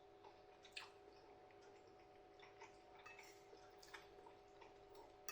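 Near silence with faint, irregular small clicks of a person chewing a mouthful of chicken curry, over a faint steady hum.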